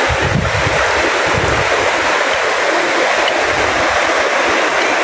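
Shallow river rapids rushing steadily over rocks and boulders.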